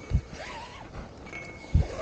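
Two dull thumps, about a second and a half apart, while a magnet-fishing rope is hauled in hand over hand, with faint chirps and a short thin whistle in the background.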